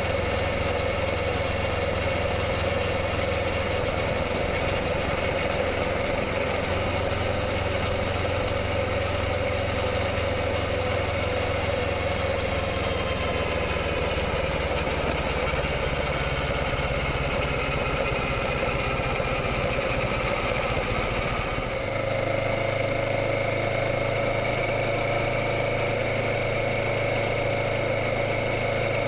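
Kawasaki Ninja 650's parallel-twin engine running steadily, its note drifting slowly and then changing abruptly to a new steady pitch about three-quarters of the way through.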